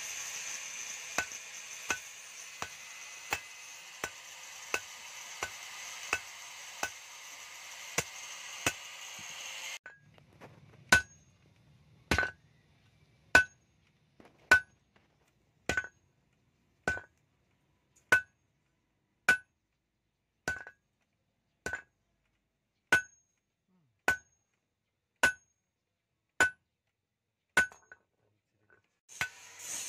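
Hand hammer striking steel on an anvil while forging a khukri blade: evenly spaced blows, each with a short ring. For about the first ten seconds they fall a little faster over a steady hiss. The hiss cuts off suddenly, and the blows then slow to about one every second and a bit.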